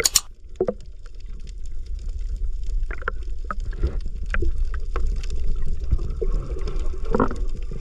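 Submerged camera's underwater sound: a steady deep, muffled rumble of water against the housing, with scattered clicks and crackles of bubbles. A loud splash at the very start as it goes under.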